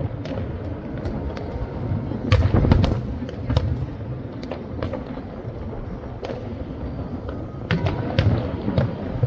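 Fireworks going off in a dense barrage: many sharp cracking bangs, with clusters of deeper booms about two and a half seconds in and again near eight seconds.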